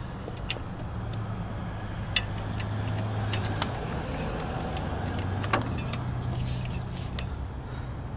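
Socket and torque wrench clicking now and then against the axle's backing-plate nuts as they are tightened to torque, a few sharp metal clicks, over the steady low hum of a vehicle engine running.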